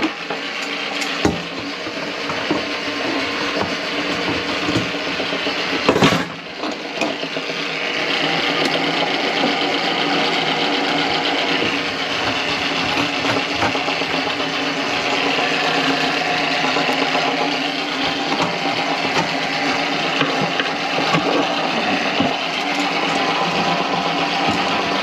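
Motorized drain snake running, its spinning cable rattling in a kitchen drain line clogged with grease. A sharp knock comes about six seconds in, and after that it runs louder with a wavering higher whine.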